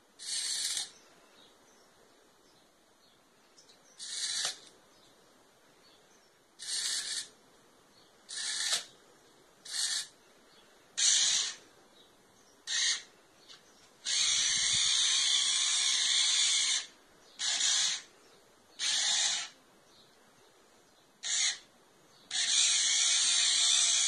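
Small electric motors and gearing of a WiFi-controlled toy tank whirring in short stop-start bursts, about a dozen of around half a second each, with two longer runs of two to three seconds as it is driven and turned.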